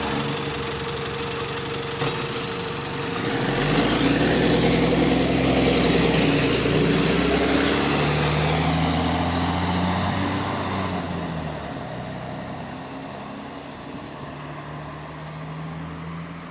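Bus engine with an exhaust leak, working harder from about three seconds in: the engine note climbs and a high whine rises and then falls away, and the sound eases off from about eleven seconds. A sharp click about two seconds in.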